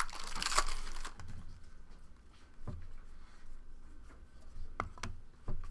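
Trading cards being handled during a box break: a brief rustle in the first second, then a few scattered light taps and clicks as cards are flipped and set down.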